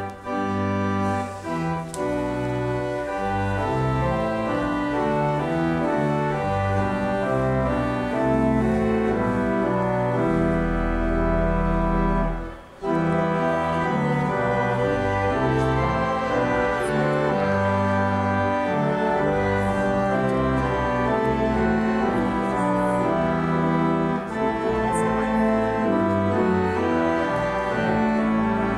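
Pipe organ playing held chords over deep bass notes, the harmony moving in steps, with a brief break about thirteen seconds in.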